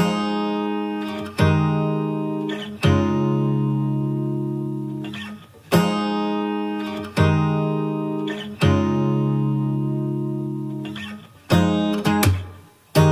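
Background music: guitar chords, each strummed and left to ring out, a new chord about every second and a half, with quicker strums near the end.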